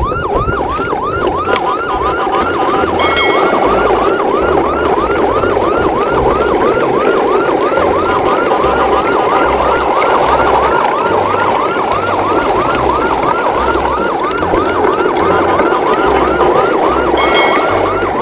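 A fast siren yelp, each note sweeping up and down about three times a second without a break, over a low, uneven bass pulse. A short, horn-like tone cuts in briefly about three seconds in and again near the end.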